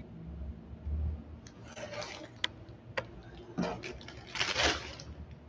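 Thin plastic shopping bag crinkling and rustling in short bursts as it is handled, with a couple of sharp clicks in the middle.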